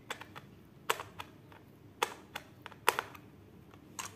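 A handful of sharp, irregular clicks and taps of a small screwdriver and hard plastic as a tiny screw is fitted into the battery cover of a toy train's tender.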